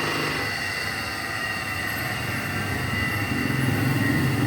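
Three-phase electric motor of an air compressor, roughly 2 horsepower, running unloaded with its compressor disconnected, fed from single-phase power through a home-built phase converter: a steady hum with a high whine, and a low rumble that grows louder from about three seconds in.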